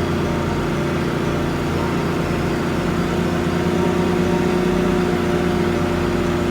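Unimog truck's diesel engine running steadily under way, a constant low hum with a nearly even pitch.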